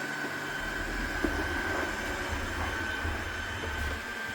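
Roomba robot vacuum running across the floor: a steady high motor whine over a low rumble, with a short bump about a second in.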